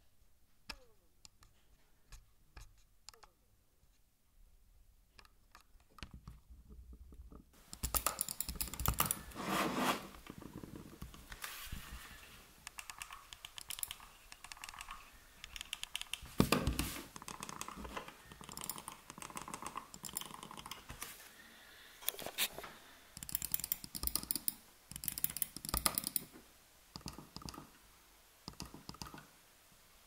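Logitech MX Anywhere 3 mouse worked right at the microphone. At first there are faint, sparse ticks from its MagSpeed scroll wheel. From about eight seconds in comes a busier run of rapid clicks, scraping and rubbing as the mouse is scrolled, clicked and handled.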